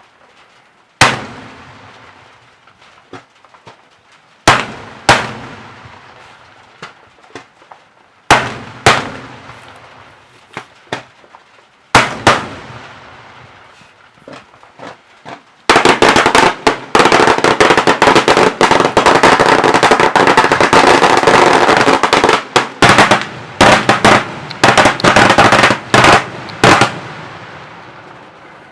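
Daytime fireworks: single loud bangs a few seconds apart, some in quick pairs, each trailing off in echo. About halfway through comes a rapid, dense barrage of bangs lasting about ten seconds, then a few last bangs and echo dying away.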